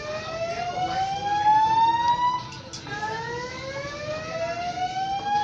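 Building fire-alarm evacuation system sounding its whoop tone: a long tone sweeping upward in pitch ends about two and a half seconds in. After a short gap, another rising sweep begins.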